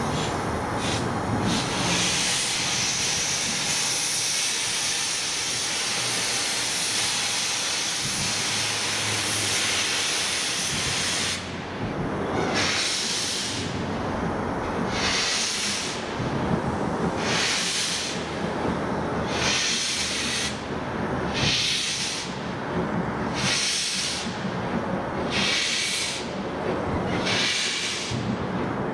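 LMS Black Five steam locomotive 44932 hissing steam steadily from its open cylinder drain cocks, then, about eleven seconds in, moving off with slow, regular exhaust chuffs, roughly one every second and a half, each with a burst of hiss.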